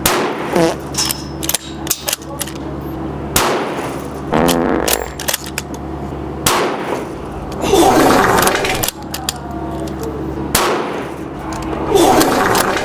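Gunshots at a shooting range: about five loud shots a few seconds apart, with fainter sharp cracks in between.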